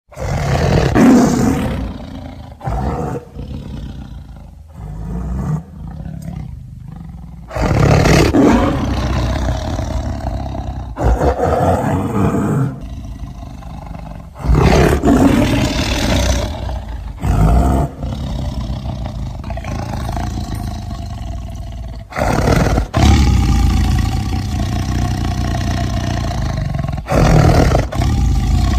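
Designed monster roars and growls from an animated film, about five of them one after another, each starting loud and trailing off into a deep, rumbling growl.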